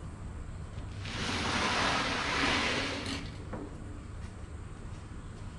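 Portable fridge dragged across a concrete floor: a scraping slide lasting about two seconds, followed by a couple of light knocks.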